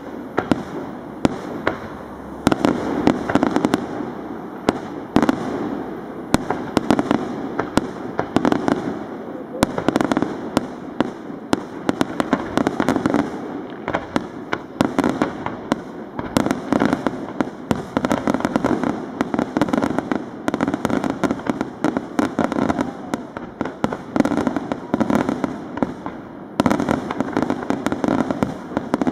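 Aerial fireworks display: shells bursting one after another in many sharp bangs and crackles, over a continuous rumble.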